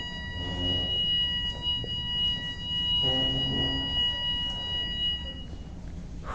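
Building fire alarm sounding one continuous high-pitched tone that cuts off about five and a half seconds in. It is a false alarm set off by the sauna.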